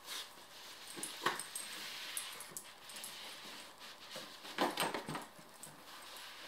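Cardboard shoebox scraping and knocking on carpet as a dog shoves its head into it, with the dog's snuffling. There are louder bumps about a second in and a cluster of them near five seconds in.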